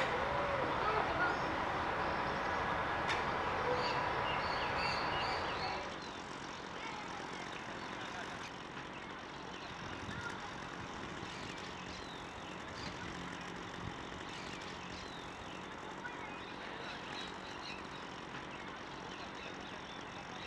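Outdoor ambience: a steady bed of background noise with faint, scattered bird chirps. The noise drops noticeably about six seconds in.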